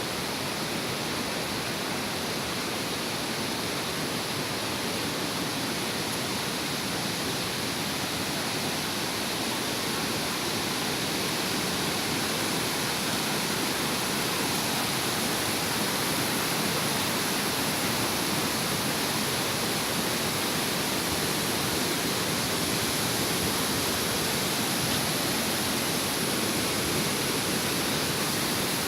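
Steady rushing of a full waterfall and fast river current, a dense even hiss of falling and churning water.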